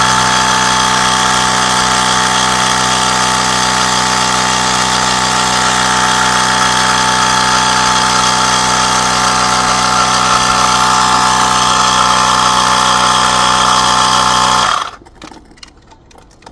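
Small electric air pump running steadily, with a loud, even mechanical hum, pushing air into a homemade smoke-machine jar; it is switched off suddenly near the end.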